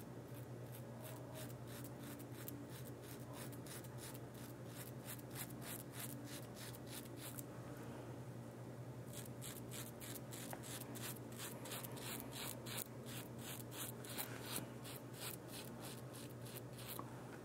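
Merkur 34C HD double-edge safety razor scraping through lathered stubble in short, quick strokes, about three a second, with a pause of about a second and a half near the middle.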